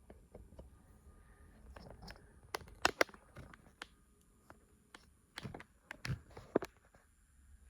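Scattered light clicks and taps of painting supplies being handled on a tabletop, such as a brush knocking against a paint pan or water jar, loudest in a quick cluster about three seconds in and again between five and a half and six and a half seconds.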